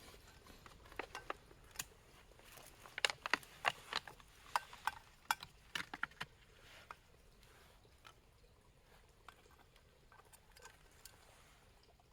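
A series of sharp clicks and light knocks, irregular and clustered over the first seven seconds or so, some with a brief ring, thinning to faint scattered ticks near the end.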